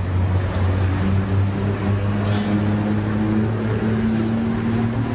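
A steady low engine hum with a droning tone, over busy outdoor background noise.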